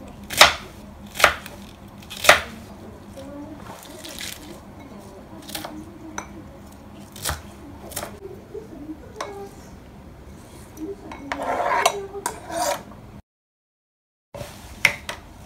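Kitchen knife chopping cabbage on a plastic cutting board: sharp knocks of the blade striking the board, the three loudest in the first couple of seconds, then lighter cuts about a second apart. Near the end comes a longer rustling scrape of the cut cabbage.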